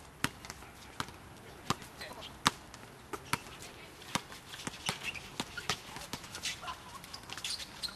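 Basketball being dribbled on an outdoor hard court: sharp single bounces about every three-quarters of a second, then quicker, irregular knocks in the second half as play crowds under the basket.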